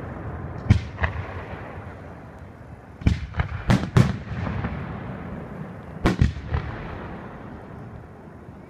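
Aerial firework shells bursting overhead: sharp bangs come in clusters, a pair about a second in, several around three to four seconds in and a pair around six seconds in, each followed by a fading rumble.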